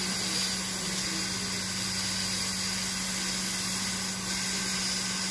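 Hot air rework gun blowing steadily onto a scanner circuit board to desolder a small surface-mount part: an even rush of air with a low hum underneath.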